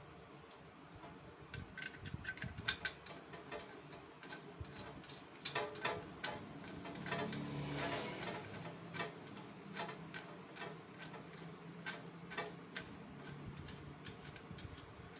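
Irregular metal clicks and taps of hand tools working the bolts that hold a motorcycle muffler, some in quick clusters.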